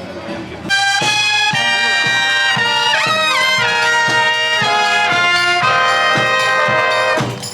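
Loud brass music that starts suddenly about a second in: trumpets and trombones playing held chords, with a slide in pitch near the middle.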